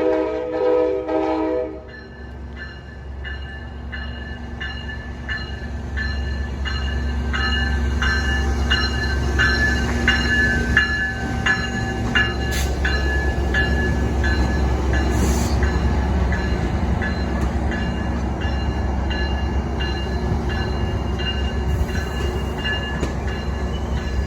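Metra commuter train's horn sounding a chord that cuts off about two seconds in, followed by the train rolling by with a deep rumble that builds and holds. A steady ringing ding repeats about every two-thirds of a second over the rumble.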